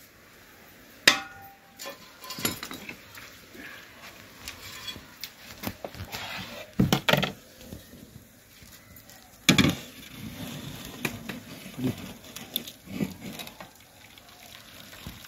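Several scattered knocks and clinks of a steel cooking pot as it is handled and tipped to pour hot sugar syrup into a bowl.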